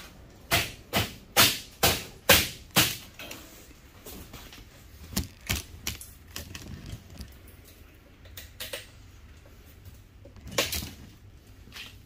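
Sharp plastic cracks and clicks as a microwave's control panel is pried apart to free its circuit board: about six quick snaps in the first three seconds, two more about five seconds in, and another cluster near the end.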